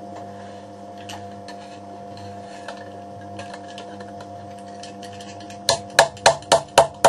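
A steady machine hum, like a small electric motor running. About five and a half seconds in, six sharp metal hammer blows follow in quick succession, about four a second, typical of coppersmith's hammering on copper.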